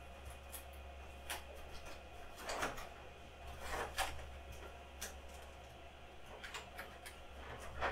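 Objects being handled and set down on a desk: scattered light clicks and knocks, several seconds apart, over a steady low hum.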